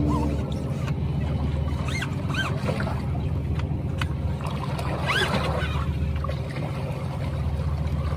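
Steady low motor drone, with a few short rising-and-falling chirps over it about two and five seconds in.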